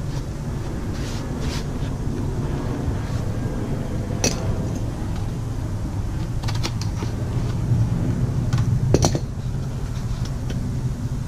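Large scissors cutting through a cardboard sun-visor panel, with scattered snips and the card rustling and crackling as it is handled. A steady low hum runs underneath throughout.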